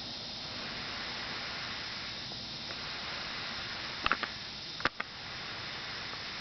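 Steady night-time background hiss, with two short sharp clicks about four and five seconds in; the haunting call itself is not heard.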